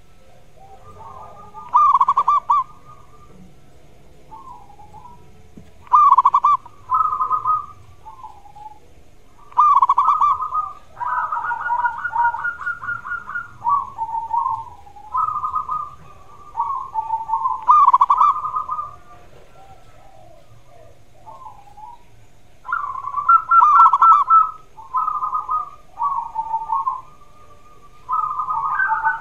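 Zebra dove (perkutut) cooing: bouts of short, trilling coo phrases every few seconds, some running into one another, with a pause of a few seconds after the middle.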